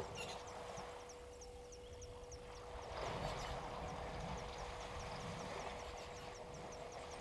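African elephant wading through a waterhole, water sloshing and splashing around its legs, loudest about three seconds in. Under it, a steady faint hum and a regular high ticking about three to four times a second.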